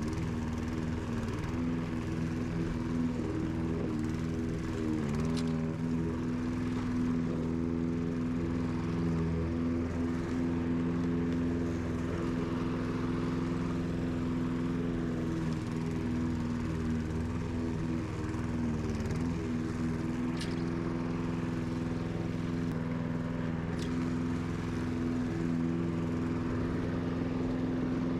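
Petrol engine of a walk-behind rotary lawn mower running steadily, its pitch sagging briefly a couple of times.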